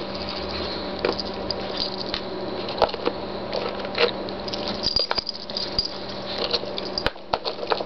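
Small dogs shifting about on a bed quilt: soft rustling and scattered small clicks, over a steady low hum.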